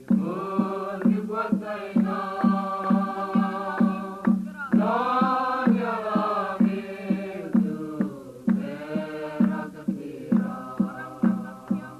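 Mizo choir singing a Christian song over a steady beat of about two and a half strokes a second.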